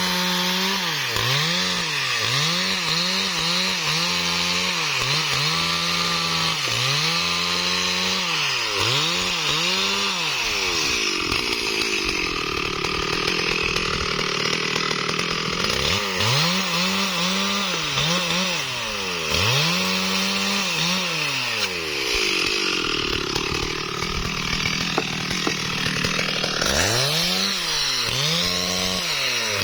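STIHL MS 382 two-stroke chainsaw running hard, its engine pitch swinging up and down about once a second as the throttle is worked. Twice it settles into a steadier, noisier run for several seconds, as when the chain is pulling through wood.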